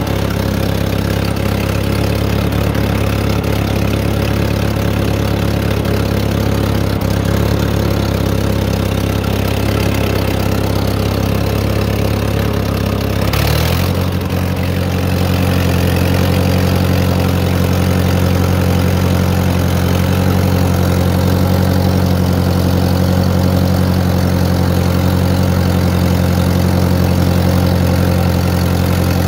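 1955 Massey Ferguson TO-35's four-cylinder gas engine running steadily. About halfway through there is a brief noise, and the engine's pitch steps up and holds at the higher speed.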